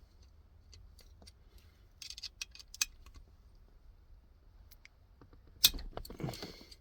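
Light clicks and taps of an Allen key working on the bolts of a short shifter assembly as they are checked for tightness. The clicks are scattered, with a cluster about two seconds in and a louder knock followed by a second of rustling near the end.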